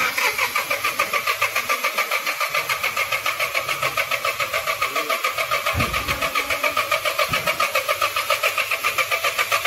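Ford EcoSport engine being cranked by its starter motor on jumper cables, a steady whirring that rises and falls about seven times a second as the cylinders come up on compression. The freshly refitted engine is turning over without catching.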